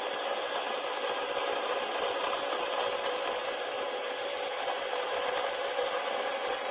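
Electric drill running steadily as it bores a hole through a 3D printer's aluminium bed plate, a constant motor whine over the grinding of the cut.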